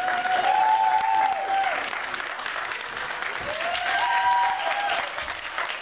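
Applause, with dense clapping throughout and two long held shouts or whoops, one at the start and one about three and a half seconds in.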